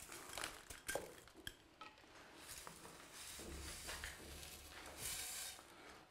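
Bonsai substrate being filled into the pot around the newly fixed tree: a few sharp clicks in the first two seconds, then faint stretches of scraping and pouring.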